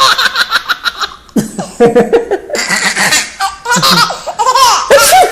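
Baby laughing hard in a string of short belly-laugh bursts, with a brief pause about a second in and high squealing laughs near the end.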